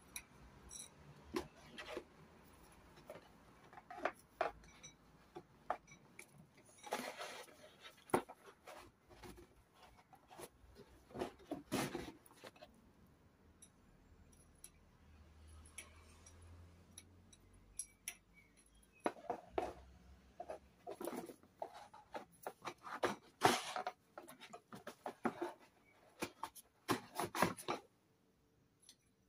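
Steel push rods from a Simca Aronde engine being pulled out and pushed into a cardboard holder: irregular light clicks, scrapes and cardboard rustles, coming in clusters with short pauses between.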